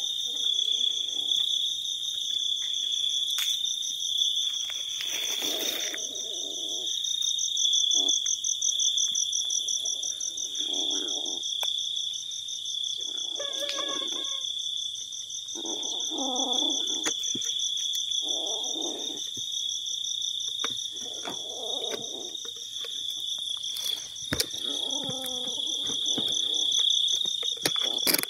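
Night insect chorus: a steady, high-pitched trilling. Short, low sounds come and go every few seconds beneath it.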